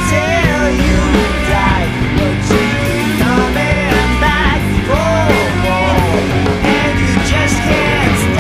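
Loud rock music with a vocal line over a full band.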